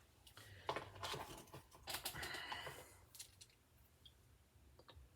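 A run of light clicks and rustles from small objects being handled close by, lasting about three seconds, with two faint clicks near the end.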